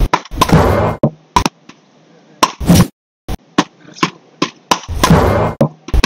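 Wooden beach racket paddles smacking a small ball back and forth in a rally: a string of short, sharp cracks at an uneven pace, some louder than others.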